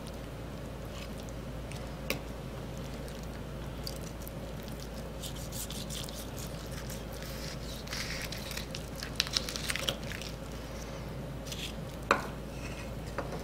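Butcher knife cutting through a roast chicken's leg joint on a wooden cutting board: soft wet squishing of meat and skin, with a few light clicks and taps, one about two seconds in and another near the end.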